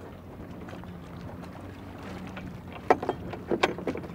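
Wooden oars knocking and clunking against a small rowboat's oarlocks and hull as they are set up, a quick run of sharp knocks starting about three seconds in, over a steady low hum.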